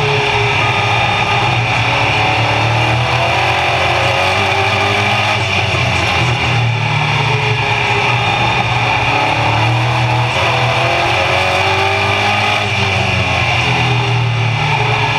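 Race car engine running hard at racing speed, heard from inside the cockpit. Its pitch sags and climbs again several times as the throttle is lifted and reapplied through the corners, over a steady rush of wind and road noise.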